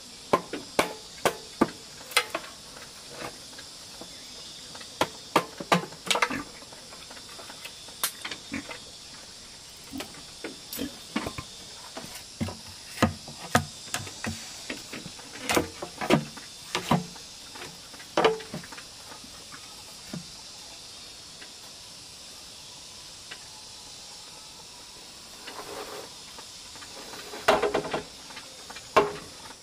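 A machete blade chopping into a bamboo post in irregular sharp knocks, hacking out a mortise hole. The knocks pause for a few seconds past the middle and return in a cluster near the end, over a steady high drone of insects.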